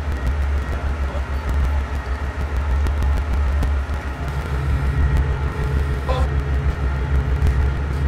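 Forklift engine idling, a steady low rumble, with a slightly higher hum joining about halfway through.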